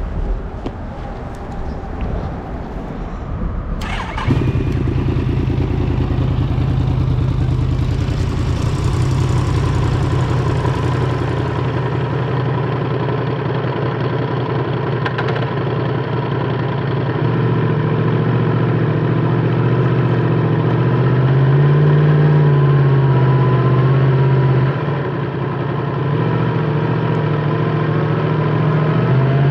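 Yamaha MT-10 SP's crossplane inline-four with an Akrapovic titanium slip-on exhaust, starting up suddenly about four seconds in and then running steadily at low revs, its pitch rising and falling a little later on.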